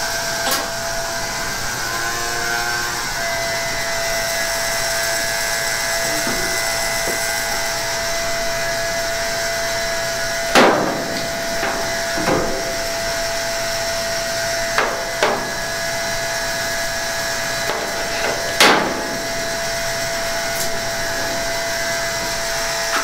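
Hand tools working a brass plumbing fitting to pull out its PEX insert: a handful of short, sharp clinks and scrapes of metal on metal, over a steady hum.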